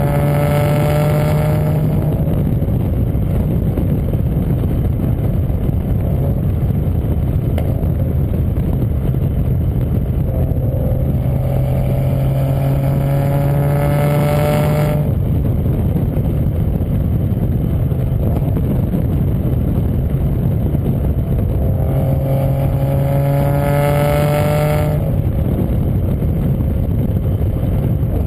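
Toyota JZX100 Chaser's straight-six running through its new exhaust: a continuous loud rush, with three stretches where the engine note climbs slowly in pitch and then cuts off suddenly, near the start, from about ten to fifteen seconds in, and from about twenty-two to twenty-five seconds in.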